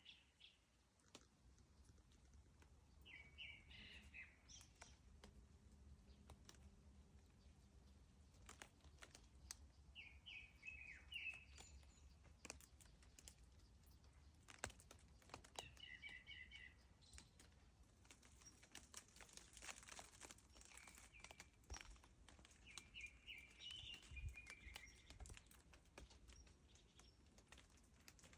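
Faint bird song: a short phrase of quick chirping notes, repeated every several seconds, with scattered soft clicks in between.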